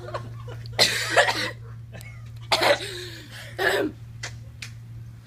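A woman coughing, several short coughs spread over a few seconds, from the burn of a raw hot pepper just eaten.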